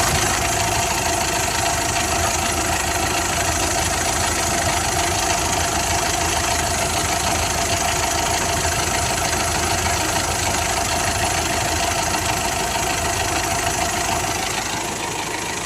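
Mitsubishi Pajero Sport engine running steadily at raised revs with the accelerator pressed, settling back down near the end.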